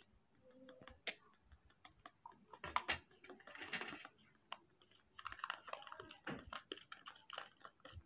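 Metal spoon clicking and scraping against a small plastic bowl while porridge powder is stirred with milk: a run of light, irregular clicks.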